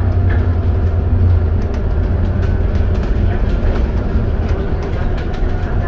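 Bus engine running and tyre noise while the bus drives, heard from inside the saloon at the front, with light ticks and rattles from the bodywork. The deep engine drone eases a little about a second and a half in.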